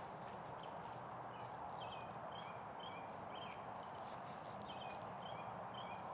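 Outdoor ambience: a steady background din with a repeating run of short, high chirping calls from an animal, about two a second, and a brief cluster of faint high ticks midway.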